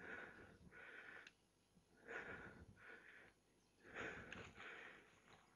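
A person breathing hard close to the microphone, in heavy puffs about every second or two.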